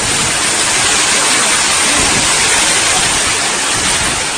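Heavy rainstorm: a dense, steady downpour that makes an even, loud hiss.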